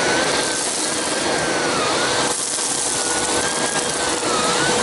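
Vacuum cleaner with a power nozzle running: a steady rushing noise with a steady hum and a higher whine that wavers up and down in pitch.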